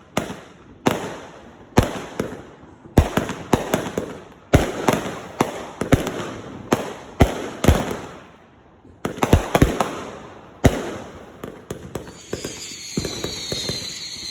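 Consumer aerial fireworks going off in quick succession: sharp bangs, each with a crackling tail, with a short lull about two-thirds of the way through. Near the end, whistling shells scream and fall in pitch.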